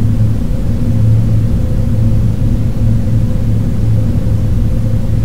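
Loud electronic drone from a sound-art score: a deep rumble under a low hum that pulses roughly once a second, with fainter higher tones held steady above it.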